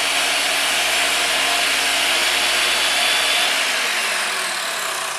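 Power saw cutting into a wooden timber, running steadily. Its blade reaches only about 2.5 inches deep, so the cut does not go all the way through. About three and a half seconds in, the pitch starts falling as the saw comes out of the cut and winds down.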